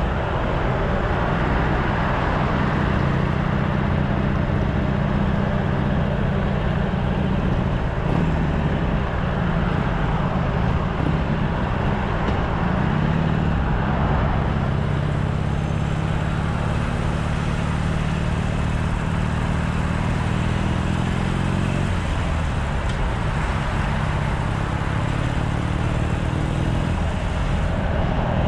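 Harley-Davidson Sportster SuperLow 883's air-cooled V-twin running through its stock exhaust while being ridden, over a steady rush of wind and road noise. The engine note dips and picks up again a little before halfway, and climbs slowly near the end.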